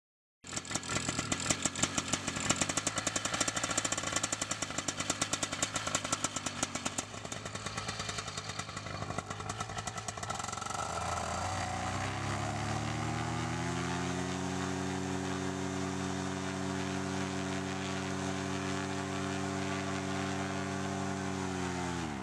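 Paramotor engine and propeller running at idle with a rapid, sharp pulsing beat, then revving up about halfway through to a steady full-power run-up, a pre-launch test at full throttle. The power is held for several seconds and then cut back sharply near the end.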